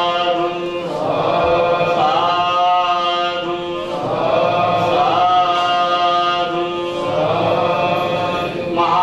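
A Buddhist monk chanting into a microphone: one male voice in long phrases, each ending on a held note, with short breaks between them.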